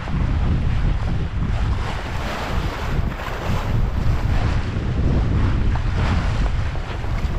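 Strong wind rumbling on the microphone over the rush and splash of water along the hull of a sailboat under sail, with the water sound swelling and fading in surges every second or so.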